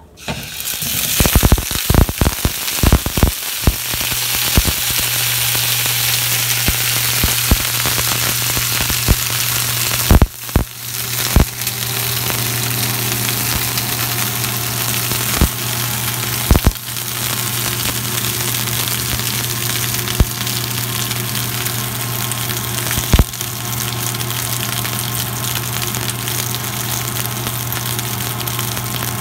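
Whole tomatillos dropped into hot oil in a nonstick frying pan, sizzling loudly with a burst of popping and crackling as they land, then settling into a steady sizzle with occasional pops as they fry. A steady low hum starts about four seconds in.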